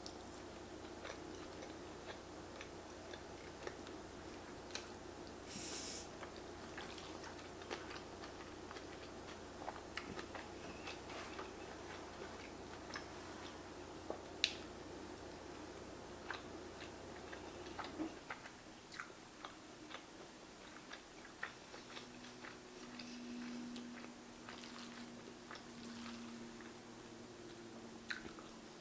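Close-miked chewing and biting of a mouthful of noodles and steak, with many small wet clicks and smacks. A steady low hum underneath cuts out about two-thirds of the way through.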